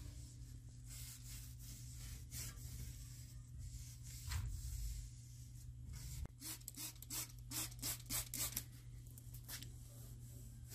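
Microfiber cloth rubbing along the metal linear guide rail of a CO2 laser cutter, wiping off dust and old oil. It goes in faint swipes, with a louder one about four seconds in and a quick run of strokes, about three a second, past the middle, over a steady low hum.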